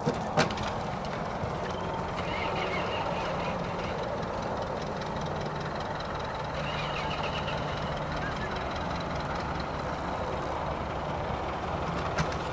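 Steady low outdoor background rumble with a faint high-pitched whine above it, broken by two sharp knocks about half a second in and another near the end.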